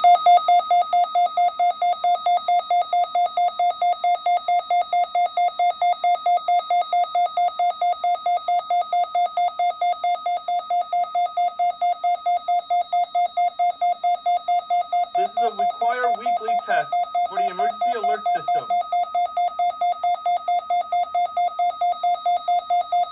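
Electronic alert tone of an Emergency Alert System weekly test: one steady mid-pitched beep repeated rapidly and evenly, without pause. A faint voice speaks briefly under it about two-thirds of the way through.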